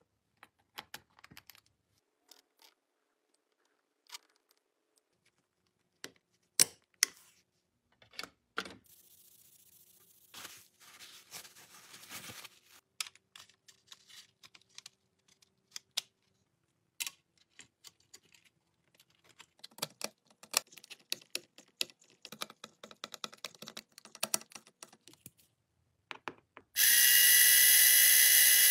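Scattered clicks, taps and light scrapes of small hard plastic and metal toy parts being handled and snapped together by hand. Near the end a much louder steady whine sets in.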